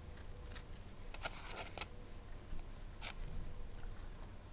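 Small clicks and light scraping from a miniature model-engine carburettor and its flange being handled and turned in the fingers, with a quick run of scratchy clicks about a second in and one sharper click about three seconds in.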